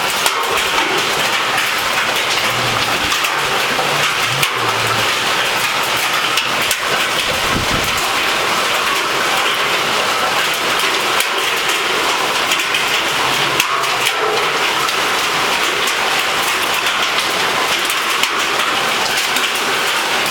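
Hailstorm: hailstones and heavy rain pelting down in a steady, dense hiss, with countless sharp ticks of stones striking hard surfaces.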